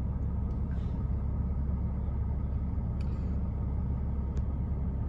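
Porsche 987's flat-six engine idling steadily at operating temperature. It runs as a smooth, even rumble, a sign that the rough warm idle is cured after the mass airflow sensor was replaced.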